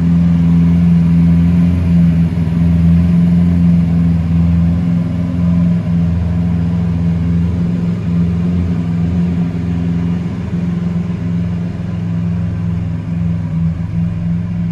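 Lamborghini Aventador SV's 6.5-litre V12 idling steadily.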